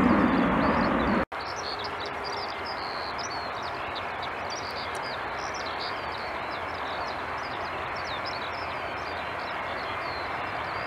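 A climbing jet airliner's engine noise that cuts off abruptly about a second in. After it, small birds chirp continuously over a steady, quieter jet engine noise from a Bombardier CRJ-900 rolling along the runway.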